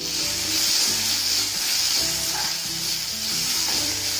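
Chopped tomatoes sizzling in hot oil in a kadai as they are stirred with a steel spatula. The sizzle starts suddenly as the tomatoes hit the oil and stays steady.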